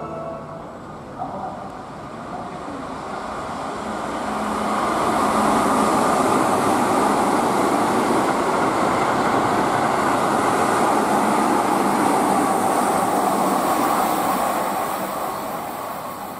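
Keihan 8000 series limited express train running through the station at speed without stopping: the rumble of wheels on rails builds over the first few seconds, holds loud and steady while the cars pass, then fades near the end as the last car goes by.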